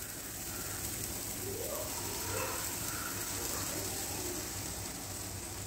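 Beaten egg and milk poured from a bowl into a hot nonstick pan of sautéed onion and tomato, with the oil sizzling steadily as the liquid spreads.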